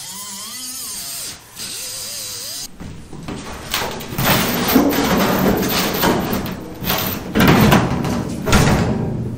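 Pneumatic cutoff wheel whining with a wavering pitch as it cuts through the Nova's steel roof skin. About three seconds in it gives way to loud, irregular creaking, scraping and banging of the sheet-metal roof skin being pulled and bent up off the car.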